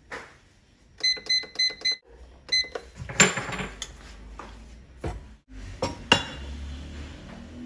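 Digital air fryer's control panel beeping, five quick beeps in about a second and then one more, as its buttons are pressed to set the preheat. Then a clatter and clicks as its hinged domed lid is lifted open.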